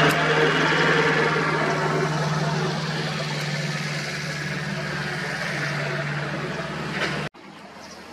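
An engine running with a steady low hum that slowly grows quieter, cut off abruptly a little after seven seconds in.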